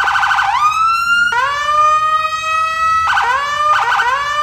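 Police car's electronic siren: a fast warble at first, then rising wails that hold steady, with short bursts of warble again near the end.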